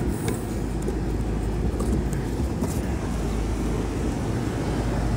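A steady low machine drone, with a few faint light clicks of handling near the start and again about two and a half seconds in.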